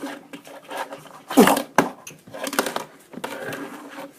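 Tech Deck fingerboard clacking and tapping on a hard surface, a series of sharp knocks at uneven spacing. About a second and a half in, a short whine-like sound falls in pitch.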